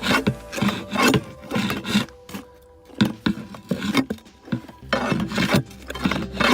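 A shovel scraping and digging into soil around a buried clay sewer pipe, in irregular strokes about one or two a second, with a short pause about two seconds in.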